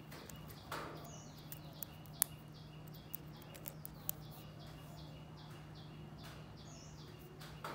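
Faint background: a steady low hum and a faint high chirping that repeats about twice a second, broken by a few small sharp clicks, the loudest about two and four seconds in.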